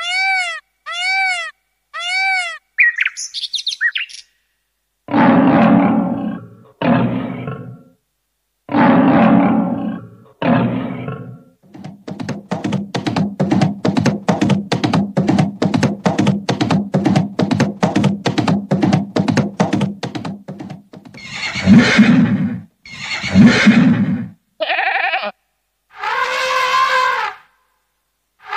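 A series of built-in sound-effect tones from a Casio CT-X700/CT-X870IN keyboard, played one after another. They start with three short rising-and-falling chirps, go on to animal-like calls and roars, have a long fast run of repeated pulses in the middle, and end with more animal-like calls.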